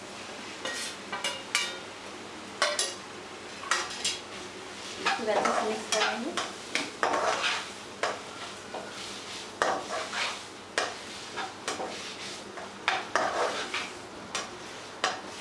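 Raw minced chicken frying in hot oil in a nonstick kadhai as a plastic spatula breaks it up and stirs it. The spatula scrapes and taps against the pan in irregular strokes over a steady low hiss.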